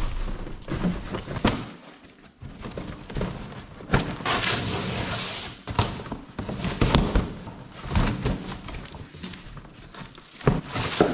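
Irregular thumps and knocks of a package being handled and opened, with about a second and a half of scraping or rustling noise around four seconds in.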